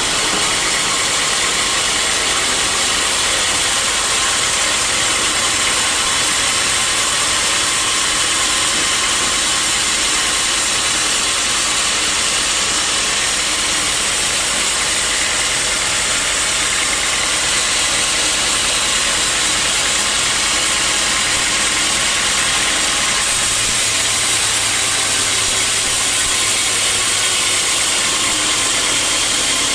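Sawmill machinery running steadily with a loud, even mechanical noise; a low hum comes in about two-thirds of the way through.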